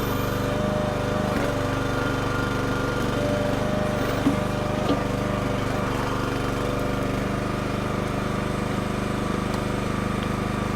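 Small engine of a Red Rock mini backhoe running steadily at constant speed, powering its hydraulics, with a couple of faint knocks about four to five seconds in.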